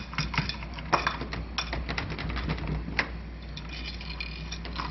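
Irregular light clicks and rattles of a metal portable door lock being handled at a closed door, with a sharper click about a second in and another about three seconds in.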